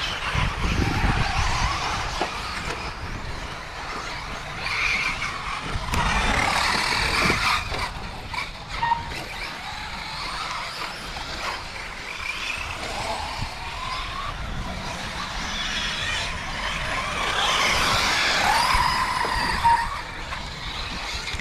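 Several 1/8-scale RC truggies racing, their small engines whining and rising and falling in pitch as they accelerate and brake. A short beep sounds a few times.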